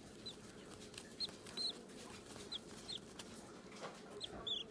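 Six-day-old cockatiel chick giving short, high cheeps, about seven of them at irregular intervals, some in quick pairs.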